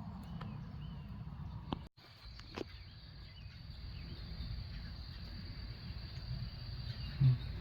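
Outdoor yard ambience: a small bird chirps a few quick arched notes near the start, and after a brief break a steady high insect drone runs on. A low rumble sits underneath throughout, with a couple of faint ticks.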